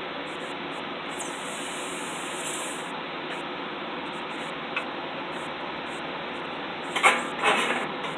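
Blacksmith's forge work: a steady rushing noise throughout, with a light knock about five seconds in and two sharp knocks of metal near the end.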